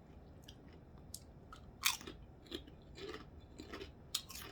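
A person biting and chewing salt and vinegar kettle-cooked potato chips: a string of crisp crunches, the loudest about two seconds in.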